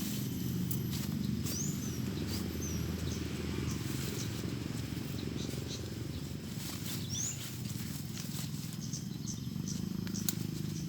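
Outdoor garden ambience: a steady low rumble, with a few short rising bird chirps and scattered light clicks.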